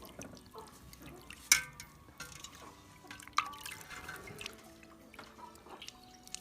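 Water dripping and splashing as dried preserved greens (gan ban cai) are washed by hand, with two sharp ringing clinks about a second and a half and three and a half seconds in.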